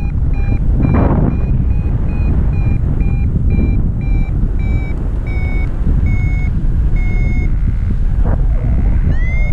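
Paragliding variometer beeping about two times a second, the audio sign of climbing in lift, over loud wind rushing on the microphone. The beeps turn longer, slower and a little lower in the middle as the climb weakens. Near the end a rising tone leads back into quicker, higher beeps.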